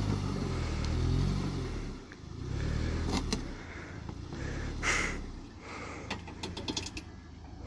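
Vehicle engine driving off-road, revving up and easing off in surges, with a few sharp knocks, a short hiss about five seconds in, and a quick run of clicks near the end.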